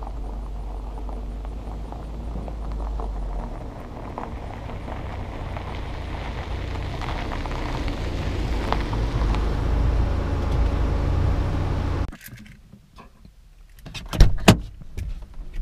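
A car drives up and pulls in, a steady low rumble of engine and tyres that grows louder for about twelve seconds and then breaks off. After that, a few sharp clicks as the car's door latch is pulled open from inside.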